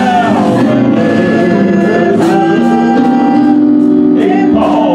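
Gospel worship song: a man sings lead through a microphone and PA over instrumental backing with held notes.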